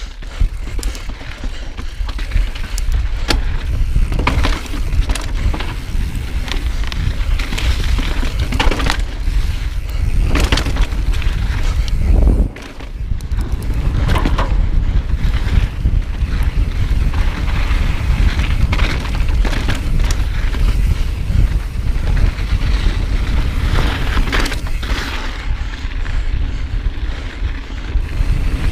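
Wind buffeting the camera microphone as an Evil Wreckoning 29er mountain bike descends fast over rock slabs and dirt singletrack. Tyres roll throughout, and the bike gives frequent knocks and rattles as it hits bumps. The noise dips briefly about twelve seconds in.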